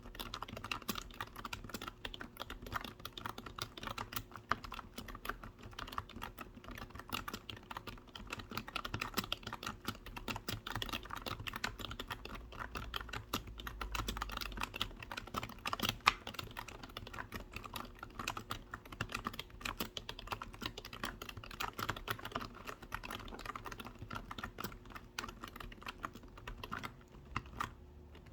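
Steady, fast typing on a computer keyboard: a dense, irregular run of key clicks that lets up briefly near the end.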